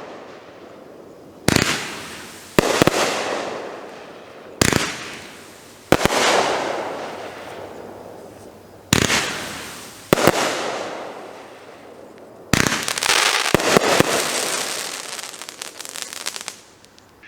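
Doremi 'Angry Angel' 25-shot 500-gram fan cake firing in volleys: sharp launch reports every second or two, each followed by a fading rush of noise from the breaks. About two-thirds of the way through, a dense run of rapid pops and crackles takes over and fades toward the end.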